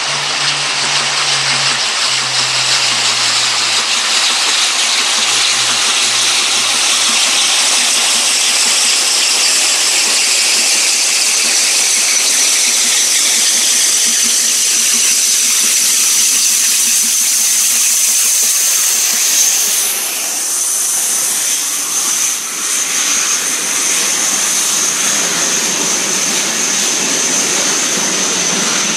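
Steam-hauled passenger train approaching and running through at speed: a loud, steady rushing noise, joined from about twelve seconds in by a steady high-pitched ring. The sound changes briefly about twenty seconds in as the locomotive passes, and the coaches follow close by.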